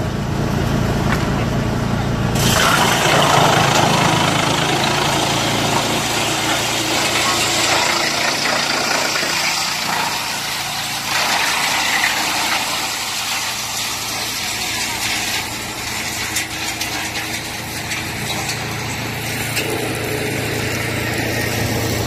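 BSR-HX400C wood chipper running and chipping wood: a steady low machine hum at first, then from about two and a half seconds a loud rough crackling noise as wood goes through the cutter, easing a little after the first several seconds.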